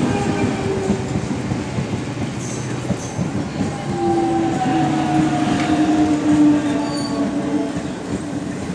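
Electric multiple-unit commuter train passing, its coaches and wheels rumbling and clattering over the track. About four seconds in, a drawn-out tone sounds for roughly three seconds, sinking slightly in pitch.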